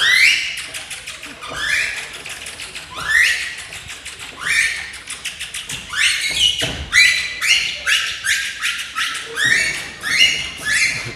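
A string of short, rising whistles, one after another and coming faster in the second half, mixed with quick clicking taps.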